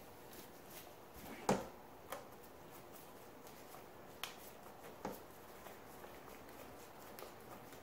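Scattered small clicks and knocks of a screwdriver working on the jet-ski handlebar's throttle housing. The loudest knock comes about one and a half seconds in, with lighter ones after it.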